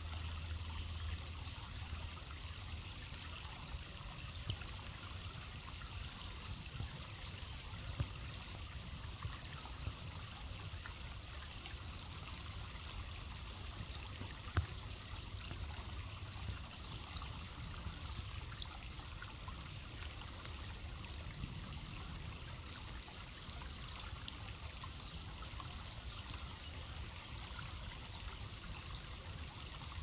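Shallow creek trickling over rocks, a steady babble of water. Two brief clicks stand out, about six seconds apart, near the middle.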